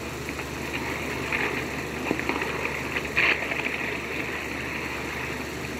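Steady hiss and low hum from a worn 16mm optical soundtrack played through the projector's sound system, with brief crackles about one and a half and three seconds in.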